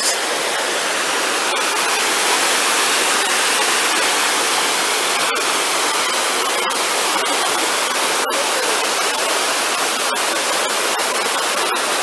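Rushing stream cascading over boulders in a small waterfall: a steady, even rush of water.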